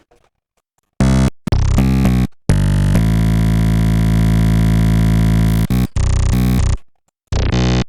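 Synthesizer patch of phase-modulated formant oscillators playing loud, dense, buzzy notes that start and stop abruptly. There are several short notes, one held for about three seconds, then more short stabs.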